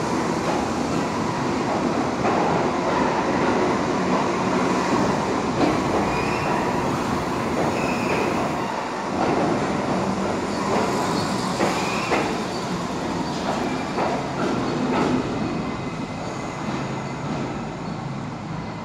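R68 subway train pulling out past the platform: a steady rumble of steel wheels on rail, with a few short wheel squeals and clicks over the rail joints. It fades near the end as the last car leaves.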